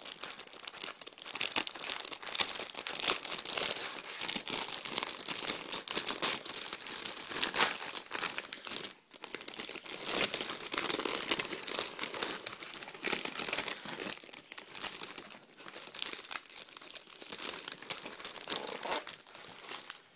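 Clear plastic wrapping on a Panini trading-card multipack crinkling and crackling as it is handled and pulled open, with a brief pause about nine seconds in.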